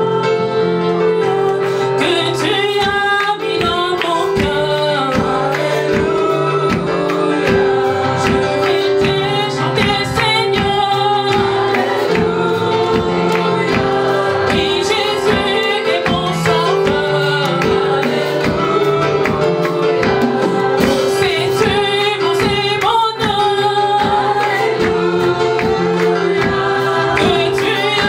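Gospel praise song: several voices singing together over instruments, with a steady beat.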